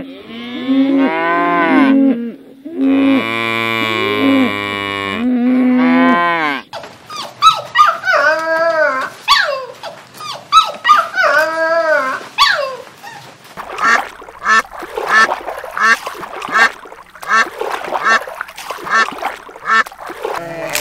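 Cattle mooing, several long low calls, for the first six seconds or so. Then puppies howling in drawn-out, rising and falling calls. Then, from about two-thirds of the way in, mallard ducks quacking in short calls about two a second.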